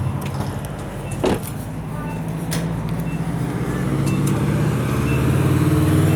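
Vehicle engine running, its low hum growing steadily louder, with a sharp click about a second in and faint short high beeps repeating.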